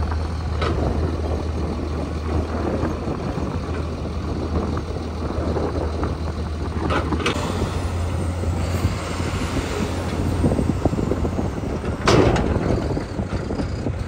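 Heavy diesel engine running steadily with a low hum, with short hisses about a second in, around seven seconds, and a louder one around twelve seconds.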